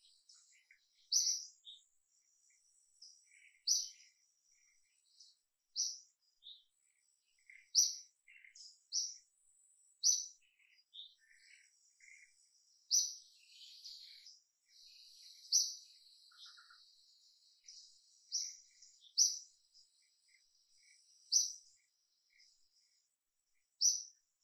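Birds calling in the surrounding trees: short, sharp high chirps repeated every second or two, over a faint thin steady high tone.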